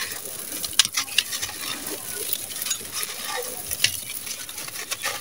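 A dry sand-cement lump crunching and crumbling in bare hands, grit crackling and loose grains pattering down into a clay pot, with sharp snaps as pieces break off about a second in and again near four seconds.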